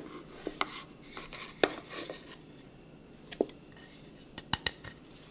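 Kitchen utensils and dishes clinking and tapping as spices are handled for a rub: sparse light knocks, then a quick run of clicks near the end.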